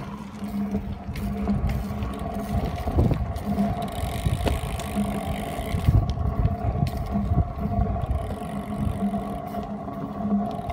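Kick scooter and BMX bike wheels rolling over pavement: a steady rumble with a faint hum and scattered clicks.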